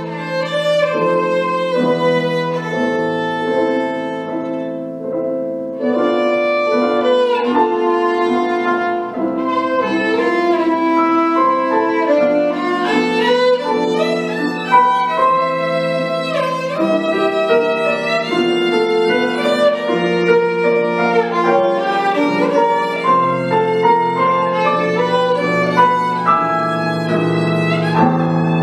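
Solo violin playing a melody with piano accompaniment. The violin plays sustained notes and a few slides over the piano's held lower notes.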